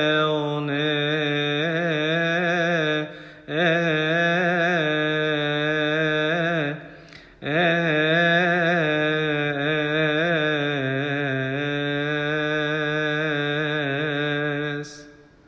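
A solo male voice singing a Coptic Orthodox hymn, drawing one word out in a long melisma with wavering, ornamented pitch. It breaks off twice for breath and fades out about a second before the end.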